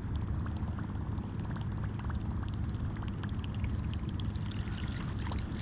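Water splashing and dripping close by the kayak: many small scattered drips and ticks over a steady low rumble.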